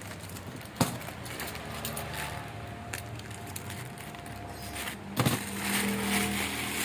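Handling noise while unboxing: two sharp knocks, one about a second in and a louder double knock about five seconds in, over a low steady background hum.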